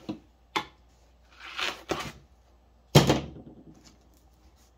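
Corrugated cardboard record mailer being opened by hand: a few crisp cardboard clicks and a short rustle as the flaps fold back, then a louder thump about three seconds in.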